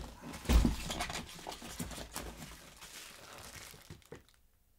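Plastic packaging crinkling and rustling as monitor accessories are unwrapped by hand, with a dull thump about half a second in. The rustling dies away near the end.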